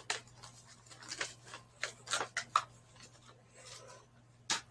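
Light handling sounds: scattered clicks and taps with soft rubbing, as objects are picked up and moved by hand, and one sharper click near the end.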